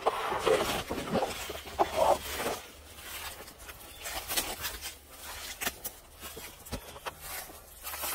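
Leafy ground cover rustling as a hand brushes through it, loudest in the first couple of seconds, followed by scattered crackles and clicks of handling and movement in the undergrowth.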